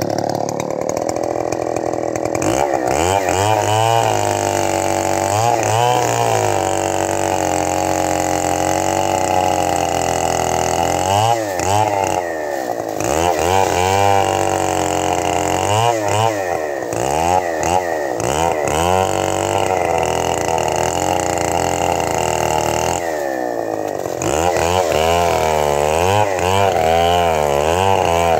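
Stihl 070 two-stroke chainsaw running, its engine revving up and down again and again as the bar cuts into a dead buri palm log. It gets louder near the end.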